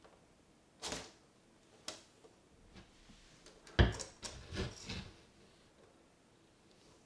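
Argus monitor lizard knocking and scraping against a bathtub while it handles a hamster in its jaws: a scrape about a second in, a short tap near two seconds, then a loud thump just before four seconds followed by about a second of further knocks and scrapes.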